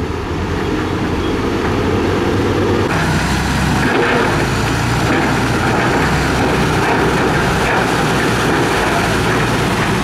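Dump truck diesel engines running while the tipper beds are raised and a load of dirt and rock slides off; the sound changes abruptly about three seconds in, when a Shacman dump truck takes over.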